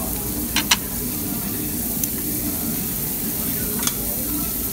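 Sliced pork belly sizzling steadily on a tabletop Korean barbecue grill. Metal tongs click against the grill plate a few times, with two quick clicks just after the start, another about two seconds in, and one near the end.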